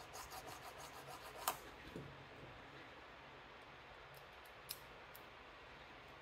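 Small hand file scraping the cut edges of a homemade Abloy disc-detainer key in quick, even strokes, filing it flat to take off burrs that snag the discs. The filing stops after about a second and a half with a sharp click. Faint handling follows, with one more click near the end.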